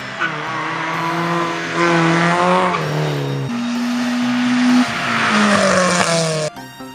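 Rally car engines revving hard under acceleration, the pitch climbing, dropping at gear changes, and climbing again as a car passes close by. Background music cuts in abruptly near the end.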